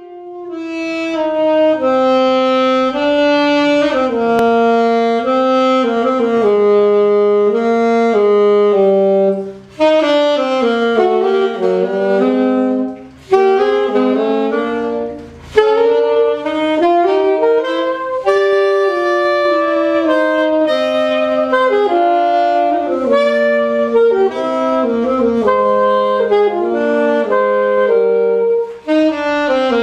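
Two saxophones playing a jazz duet, two melodic lines moving together in harmony, with short breaks between phrases.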